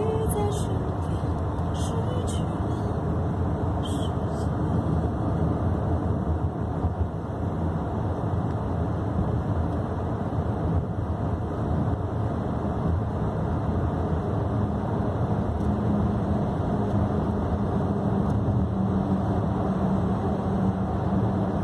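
Steady road and engine noise inside a moving car's cabin in a road tunnel. A low steady hum joins about two-thirds of the way in.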